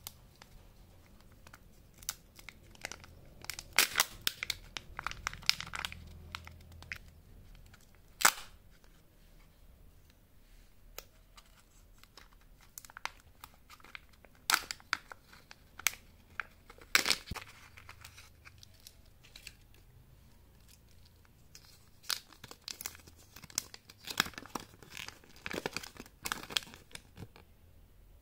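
Candy wrappers being torn open and crinkled by hand, in irregular bursts of crackling and sharp snaps with quieter gaps between.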